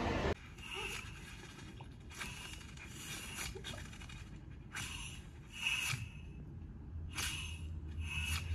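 Film soundtrack playing through cinema speakers: short, soft scratching noises roughly a second apart, with a low rumble building near the end.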